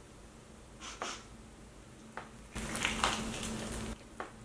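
Biting into and chewing a crispy Popeyes fried chicken breast: a few short crunches of the breading, then a longer stretch of close, crunchy chewing from about two and a half seconds in.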